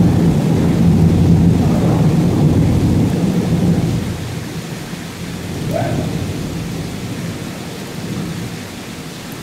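Thunder rumbling loudly over steady heavy rain. The rumble fades after about four seconds, with a smaller swell about six seconds in.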